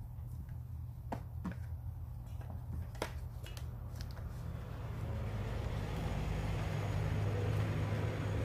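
Light clicks and knocks of parts being handled and fitted as a backpack brush cutter's engine is reassembled by hand, over a steady low hum. A broad rushing noise swells up in the second half.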